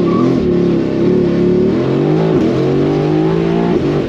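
Mercedes-AMG GT R Pro's twin-turbo V8 through an FI aftermarket exhaust, accelerating hard. The engine note climbs in pitch, drops sharply at a shift about two and a half seconds in, climbs again, and falls away just before the end.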